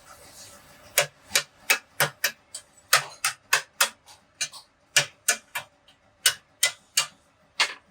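A run of short, sharp knocks, about three a second and not quite even, starting about a second in and stopping just before the end.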